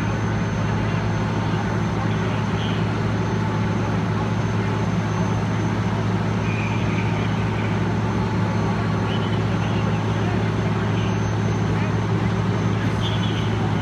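Fire engine's diesel engine running steadily with an unchanging low hum.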